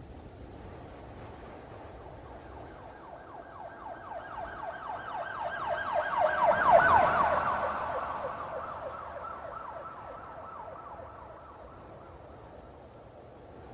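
Police car siren in a fast yelp that rises and falls many times a second, passing by. It swells to its loudest about halfway through, then fades, its pitch dropping slightly after the peak. A steady low traffic-like noise lies underneath.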